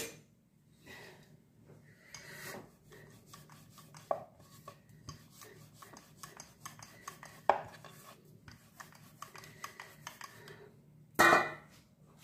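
Rolling pin rolling a floured ball of paratha dough out flat on a wooden board: light scraping and clicking as it rolls, with a few sharper knocks, the loudest near the end.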